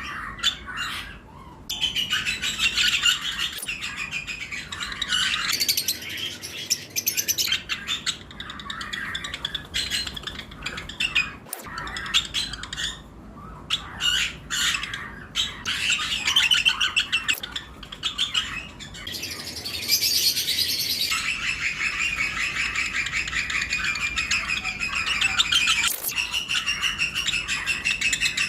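A flock of lovebirds chirping and squawking, many shrill calls overlapping, with short lulls. From about two-thirds of the way through, the calling settles into a denser, steady, rapid chatter.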